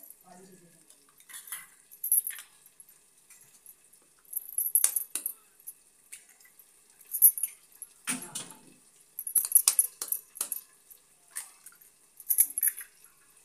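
Eggs being cracked open with sharp taps from the back of a kitchen knife and emptied into a stainless steel bowl holding a wire whisk. The taps and light metal clinks come in irregular clusters with short quiet gaps between.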